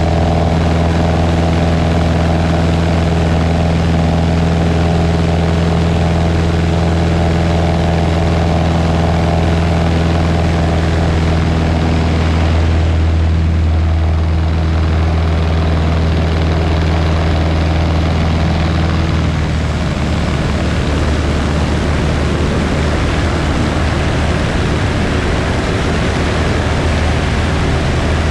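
Light propeller airplane's engine and propeller running steadily in flight, a loud even drone with a deep hum. About two-thirds of the way through the hum thins and a rushing wind noise takes over.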